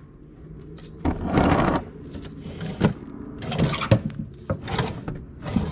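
The drawer of a small wooden nightstand is slid shut by hand: a rubbing slide, then a few sharp knocks as it bumps home.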